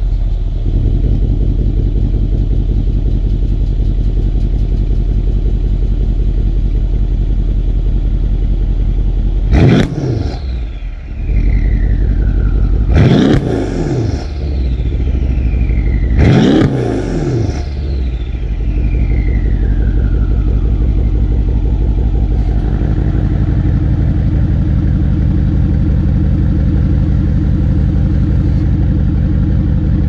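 2012 Mercedes E63 AMG's twin-turbo V8, with aftermarket downpipes, X-pipe and exhaust cutouts, idling steadily. It is revved three times a few seconds apart, each rev climbing sharply and dropping back to idle.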